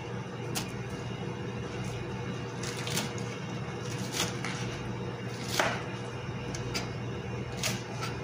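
Chef's knife cutting through crisp iceberg lettuce onto a plastic cutting board: a scattering of short crunchy cuts and taps, the loudest about five and a half seconds in, over a steady low hum.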